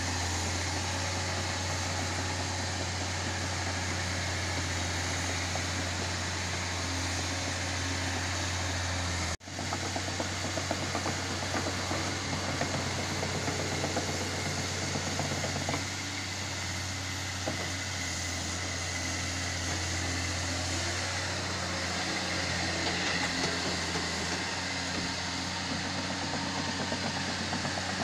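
Caterpillar 320C hydraulic excavator's diesel engine running steadily with a low hum. After a brief cut about nine seconds in, it goes on with a rougher, noisier sound.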